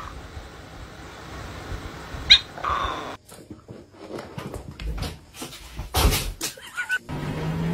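A dog gives a short high yelp, then a puppy and a cat tussle with a run of scuffles, paw taps and bumps, the loudest bump about six seconds in, and a brief squeak near the end.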